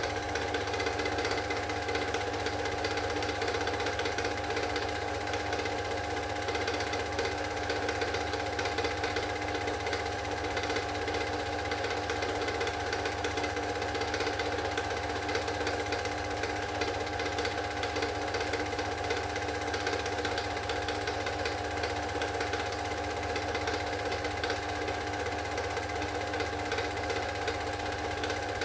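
Super 8 film projector running: a steady motor whir with a fast, even mechanical chatter from the film drive.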